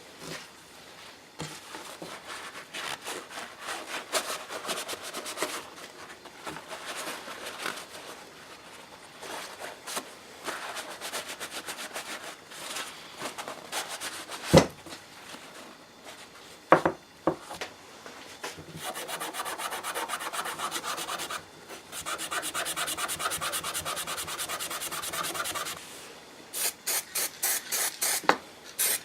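Hand sanding or rubbing strokes on a workpiece during restoration. There is a sharp knock about halfway and two more soon after, then a stretch of faster, steadier rubbing, and a run of short quick bursts near the end.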